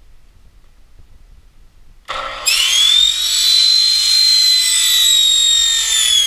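Electric chop saw switched on about two seconds in, its motor whining up to speed. It then runs at a steady high whine as the blade cuts down through the carbon flange of a Tuttle fin box.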